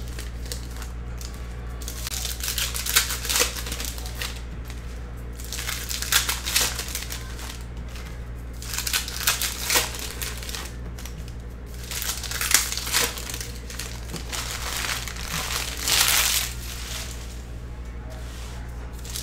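Foil trading-card pack wrappers crinkling and tearing as 2022 Panini Legacy Football packs are ripped open and the cards handled, in irregular bursts every second or two. A steady low hum runs underneath.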